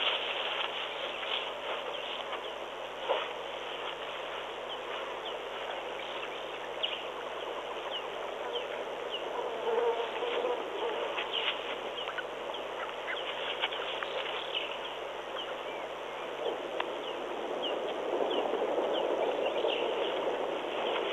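Steady outdoor ambience of insects buzzing, with scattered short high chirps throughout and a slight rise in level near the end.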